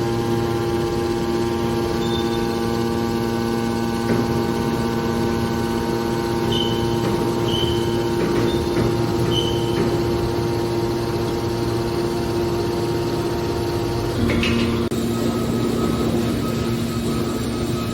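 Hydraulic scrap metal baler running: a steady hum of its motor and pump with several held tones. A few short high chirps come in the middle, and the tones shift with a brief knock a little over three-quarters of the way through.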